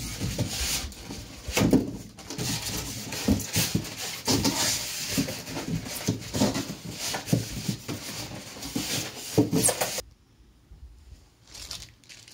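Unpacking noise: a busy string of rustles, scrapes and knocks as the packaging and parts of a new sewing machine are handled, stopping suddenly about ten seconds in.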